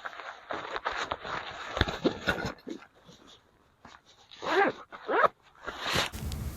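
Ferro rod being scraped with a striker: a quick run of short rasping strokes, then two longer scrapes after a pause. A steady rushing noise starts near the end.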